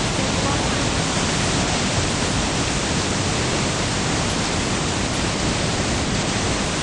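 Steady rush of a fast-flowing river below a dam, an even unbroken noise.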